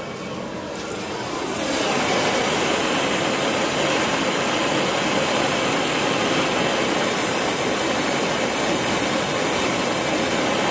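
Homemade propane forge burner burning with its gas being turned down to about 3 psi: a steady, even rushing noise that gets louder about two seconds in.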